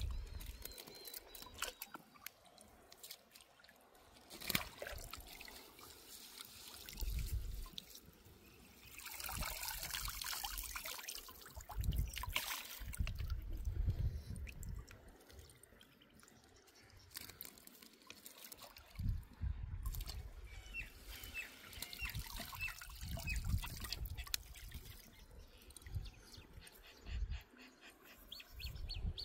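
Lake water trickling and splashing, with a louder rush of splashing about nine seconds in and scattered low thumps.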